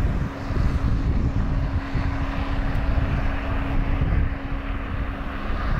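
Traffic on a snow-covered interstate with wind on the microphone: a steady low rumble, with a faint steady hum through most of it.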